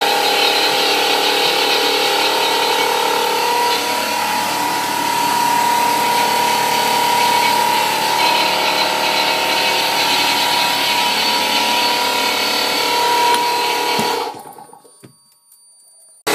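A motor-driven tool or machine running steadily: a loud rushing noise with a constant whine, fading out about fourteen seconds in.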